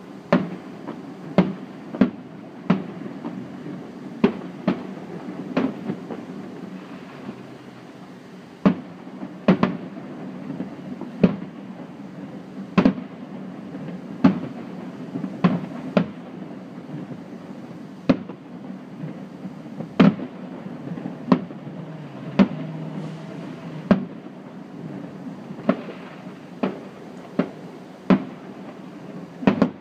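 Aerial firework shells bursting: a run of sharp bangs at irregular intervals, roughly one a second, over a steady low background rumble.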